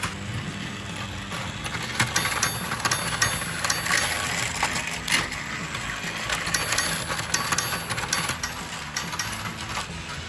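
Motorised plastic toy vehicles running on a plastic track set: a steady motor hum with irregular plastic clicks and rattles, busiest about two to four and six to eight seconds in.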